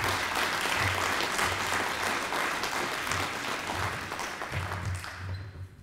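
Audience applauding, steady for most of the stretch and dying away near the end.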